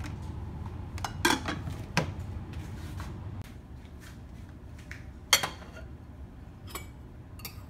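Dishes being handled: a few sharp clinks and knocks of a rice-cooker lid and paddle and a ceramic rice bowl set down beside a plate, the loudest about five seconds in. A low steady hum runs underneath and stops about three and a half seconds in.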